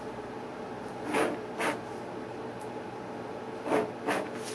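Ballpoint pen scratching along a plastic ruler on a paper pad, underlining a written heading: four short strokes in two pairs, one pair about a second in and the other near the end.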